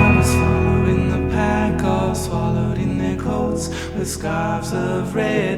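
Indie folk music between sung verses: guitar with layered vocal harmonies and a light percussion hit about once a second.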